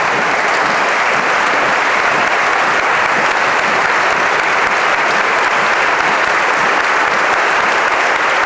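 A large group of legislators applauding: dense, steady clapping that holds an even level without a break.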